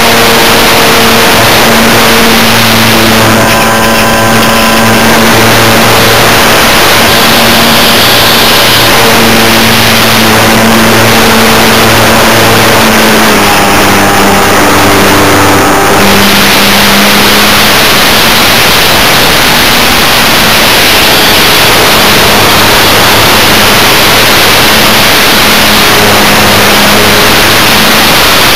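Motor and propeller of a Multiplex EasyCub RC model plane, recorded by the camera on board: a loud, distorted buzz buried in wind rush. Its pitch shifts several times as the throttle changes.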